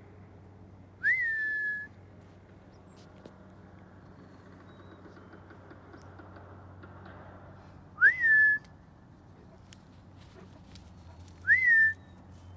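A person whistling to call cattle: three short whistles, each sliding up and then held briefly on one note, about a second in, about eight seconds in, and near the end.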